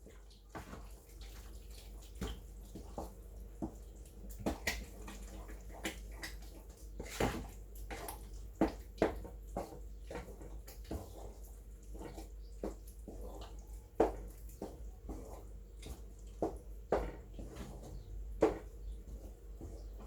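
Spoon stirring a thick spinach and okra stew in a pot: irregular wet squelches and knocks, a few louder ones, over a steady low hum.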